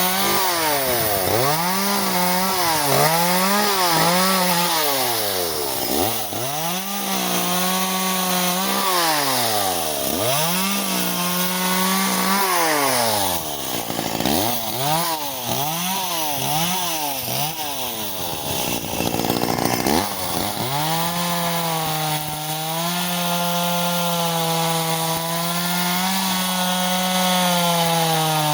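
Echo CS-370 two-stroke chainsaw revving up and down over and over for about twenty seconds, then held at steady high revs, sagging slightly at the very end.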